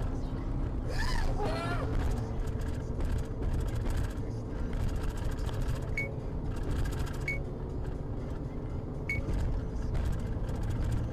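Steady road and engine rumble inside a car cruising on a freeway. A brief wavering voice-like sound comes about a second in, and a few short high chirps come later.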